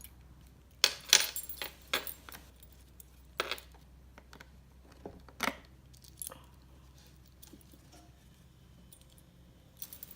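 Toy keys jingling and clicking as a key is worked into the lock of a wooden doorbell-house toy's door. There is a scatter of sharp clicks and jingles, loudest about a second in, then sparser.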